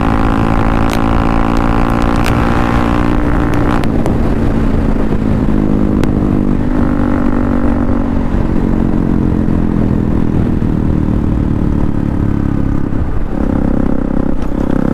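KTM 200 Duke's single-cylinder engine through an aftermarket Akrapovic exhaust, running hard at speed in a top-speed run. The engine note holds steady and changes about four seconds in and again near the end.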